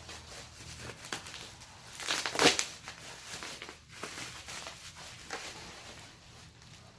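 Packing material and cardboard being rustled and crinkled by hand while parts are lifted from a box, in irregular bursts with a louder crunch about two and a half seconds in.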